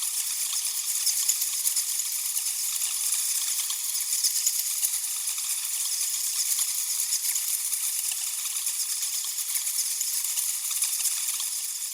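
Many bats chattering and squeaking together: a dense, steady, high-pitched twitter of tiny clicks and chirps.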